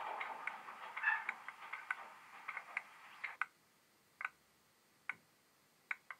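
Light clicks and ticks from a Bachmann OO gauge Class 08 shunter model running slowly on its track. A quick run of small ticks over a fading background noise comes first, then single sharp clicks with silence between, about one a second.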